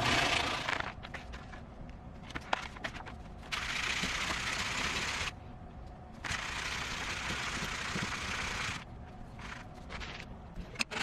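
A workshop machine running in spells of about two seconds, switching on and off, with light clicks of metal parts being handled between the spells.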